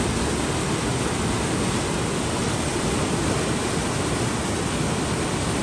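White water churning and rushing out below a dam's sluice gates: a steady, even noise with no breaks.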